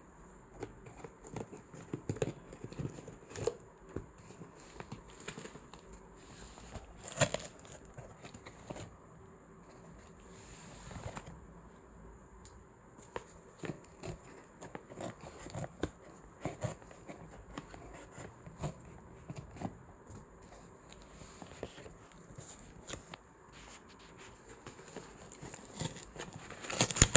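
Scissors cutting through a corrugated cardboard box and its packing tape: irregular snips, crunches and rustles of cardboard, with a louder rip near the end as the cut flap is pulled back.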